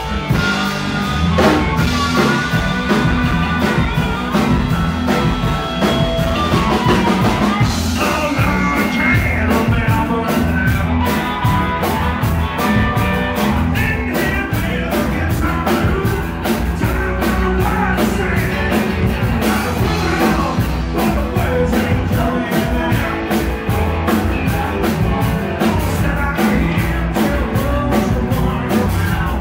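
Live blues-rock band playing: electric bass, electric guitars and a drum kit keeping a steady beat.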